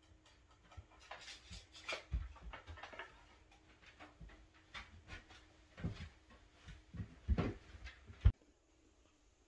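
Lumber and tools being picked up and handled: a run of irregular knocks, thumps and rustles, ending in one sharp knock near the end.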